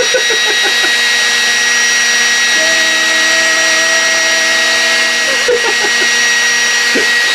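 Built-in electric air compressor of a SeatZac self-inflating chair running steadily with a high whine, blowing air into the chair as it inflates.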